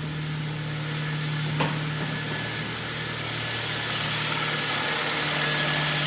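Kia Ceed's rebuilt 1.4 G4FA four-cylinder petrol engine idling steadily and evenly, with no piston knock. There is a single click about a second and a half in.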